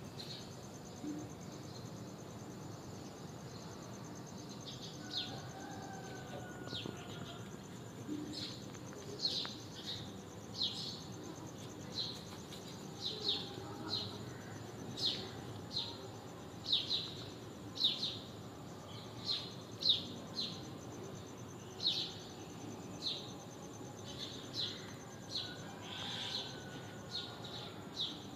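A small bird chirping over and over: single short, high chirps that begin a few seconds in and then come about once a second.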